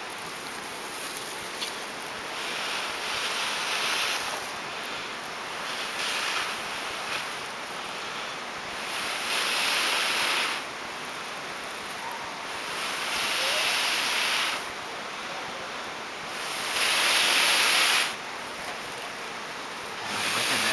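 A person blowing long breaths into a bundle of dried grass and char cloth to coax a glowing ember into flame. There are about five rushing blows, each a second or two long and a few seconds apart, with the loudest near the end.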